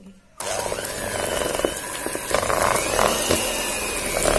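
A Philips 300-watt electric hand mixer switches on about half a second in and runs with a steady motor whine. Its twin beaters churn a block of softened unsalted butter in a plastic bowl, with a few knocks along the way.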